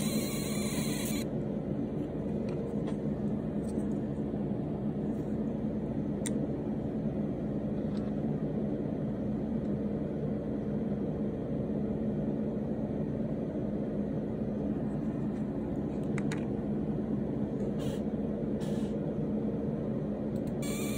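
Steady low mechanical hum, as of a motor or fan running, with a few faint light clicks.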